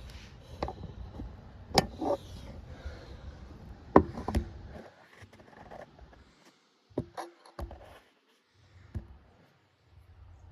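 Irregular sharp knocks and clicks, about nine in all, over a low rumble that falls away about halfway through.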